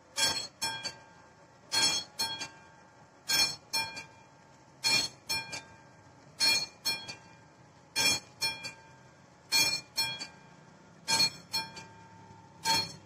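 Classic mechanical bell of an AŽD 71 railway level crossing ringing in repeating groups, a loud strike followed by two quicker fainter ones, about every one and a half seconds: the crossing's warning that a train is approaching.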